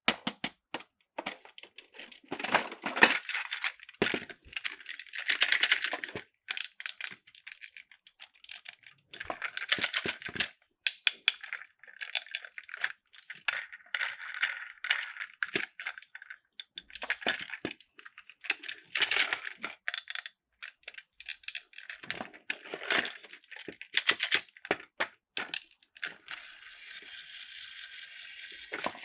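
Plastic toy train cars clicking and rattling as they are handled and coupled together. About three seconds before the end, a toy train's motor starts up with a steady whir.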